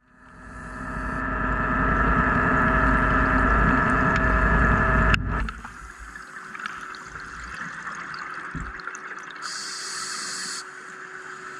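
Underwater sound from a diver's camera: a loud, steady mechanical hum over a low rumble that fades in and then cuts off suddenly about five seconds in. After that, a quieter steady water hiss with a faint steady tone, and a short burst of high hiss just before the end.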